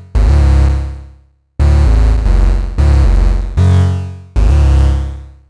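Two Eowave Orage analog oscillators, the second hard-synced to the first and tuned above it, playing a phrase of about five buzzy, harmonic-rich bass notes. Each note starts sharply and fades away; the first dies out completely before the next begins.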